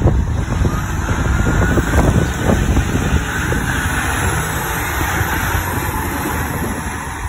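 Fire engine's diesel engine running as the truck pulls away and drives close past, with a faint whine rising slowly in pitch as it moves off. Wind buffets the microphone.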